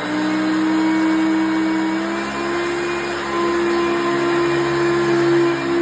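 1988 Hoover Concept One upright vacuum cleaner running with a steady motor whine; the pitch steps up slightly about two seconds in.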